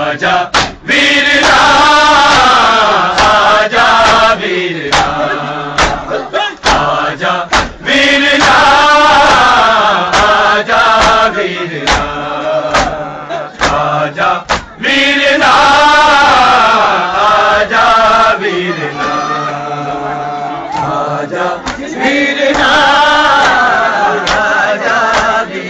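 A crowd of men chanting a Muharram noha (lament) together in long wavering phrases of about three seconds, one every six or seven seconds. Sharp slaps fall in the gaps between the phrases.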